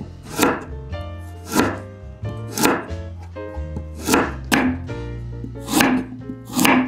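Knife chopping food on a cutting board: single sharp strokes about once a second, over background music.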